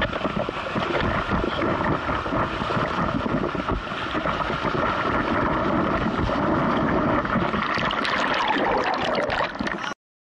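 Wind buffeting an action camera's microphone, mixed with the rush and splash of sea water around a bodyboard, getting rougher near the end and cutting off suddenly just before the end.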